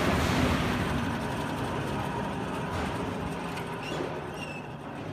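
Gas-fired animal-feed drying oven running, its electric drive motor and gas burner making a steady rushing machine noise that slowly gets quieter.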